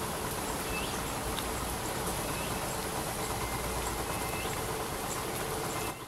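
Steady outdoor ambient noise, a low rumble with hiss over it, and a few faint short chirps scattered through it.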